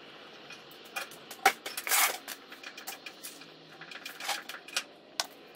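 Handling noise: an irregular run of sharp clicks and knocks, the loudest knock about one and a half seconds in, followed by a short scraping rustle.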